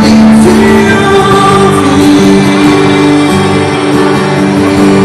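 Live band playing a gospel song: a man singing over acoustic guitar, electric bass and keyboard.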